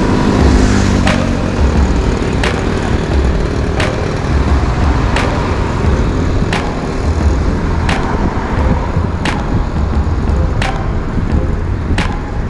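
Low rumble of road traffic, with a sharp click repeating about every one and a half seconds.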